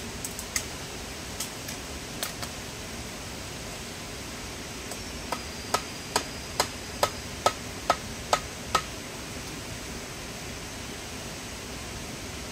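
A run of eight or nine sharp knocks, evenly spaced at a little over two a second, each with a short ring, over a steady hiss; a few scattered clicks come before them.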